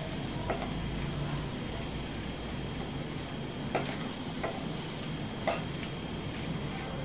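A spatula stirring soaked sago and potato in a kadai, with a few short scrapes and taps of the spatula against the pan.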